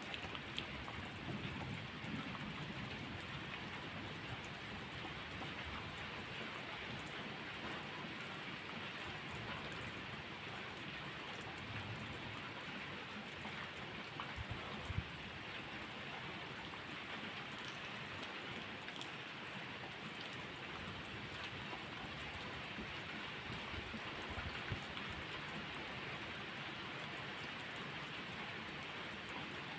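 Steady rain falling, with a few sharp crackling pops from a wood fire scattered through, the loudest about halfway. There are a couple of soft low rumbles, near the start and again at about 12 seconds.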